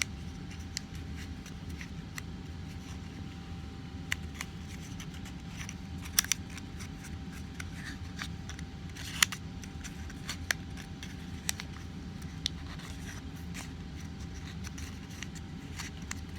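Accordion-folded origami paper crinkling and crackling in scattered sharp clicks as it is gently pulled apart by hand, over a steady low hum.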